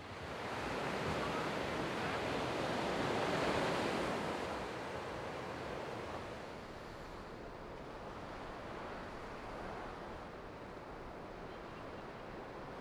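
Small surf breaking and washing onto a sandy beach: a steady rush that builds in the first second, peaks about three to four seconds in, then settles lower.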